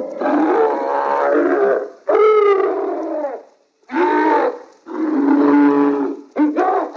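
Slimer's creature vocal sound effects: a string of about five loud, pitched calls with short breaks between them. The second call rises, then falls in pitch.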